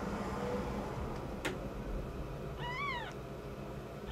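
Newborn kitten giving one short, high mew about three seconds in, its pitch rising and then falling. A single sharp click comes about halfway through.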